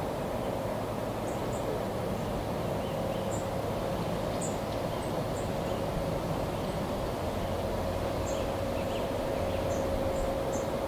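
Steam locomotive running in the distance as it approaches, a steady hiss and rumble with no distinct beat, while small birds chirp high over it now and then.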